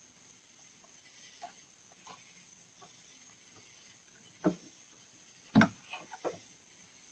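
Light clicks and two loud sharp knocks about a second apart, followed by a few lighter clicks, as of a car's door and contents being handled while it is rummaged through. They sit over the steady hiss and faint high whine of a security camera's microphone.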